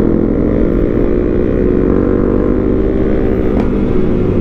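Honda CRF250 Rally's single-cylinder engine running at a steady, even speed, heard from the rider's seat.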